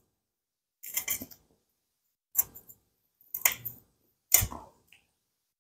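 A cleaver chopping through a broccoli head on a cutting board: four separate cuts, about a second apart.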